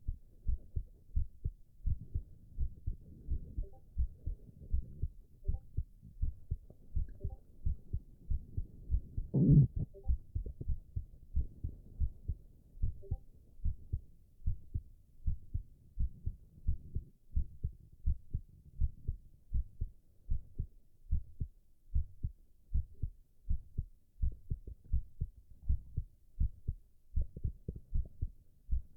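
A man's heartbeat recorded close up at the chest, beating in a steady, even rhythm. About nine and a half seconds in, one brief, louder sound rises over the beats.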